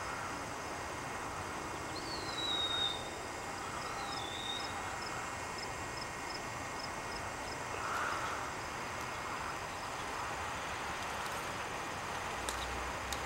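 Outdoor rural ambience: a steady hiss with faint, evenly spaced insect ticking through the first half, and two short falling bird whistles about two and four seconds in.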